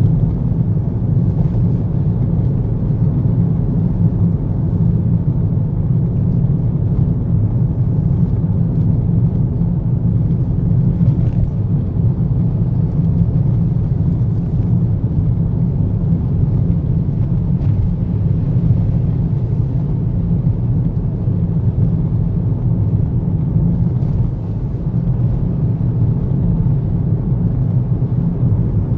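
Steady low rumble of a car cruising on an expressway: tyre, road and engine noise heard from inside the car.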